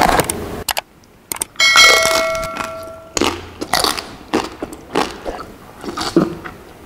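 A couple of sharp clicks, then a bright bell-like ding that rings for about a second and a half. It is followed by scattered biting and chewing sounds from someone eating roast pig.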